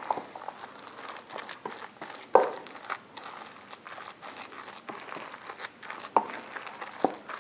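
Wooden spoon stirring a thick, wet batter of grated raw potato, onion, egg and flour in a stainless steel bowl: irregular scraping and clicking, with a sharper click about two seconds in and two more near the end.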